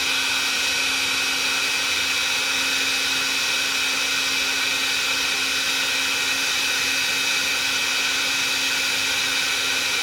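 Milwaukee electric heat gun running steadily: an even rush of blown air with a steady motor hum and a high whine.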